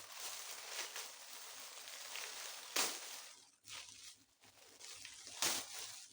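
Food-parcel packaging rustling and crinkling as it is unwrapped, with two louder crackles, about three seconds in and near the end.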